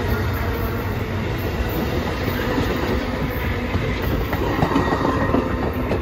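Amtrak Northeast Regional passenger cars rolling past close by, a steady rumble of steel wheels on rail with clicking over the rail joints, strongest about four to five seconds in.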